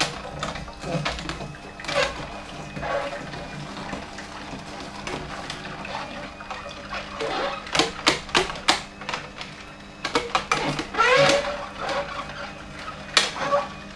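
Philips masticating juicer running with a low steady hum while cucumber is pushed down its chute. Over the hum come bursts of sharp clicks and cracks as the screw crushes the pieces, thickest in the second half.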